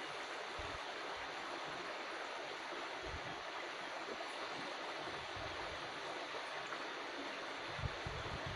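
Steady rush of flowing water in a stream channel, with a few soft low thumps, the loudest near the end.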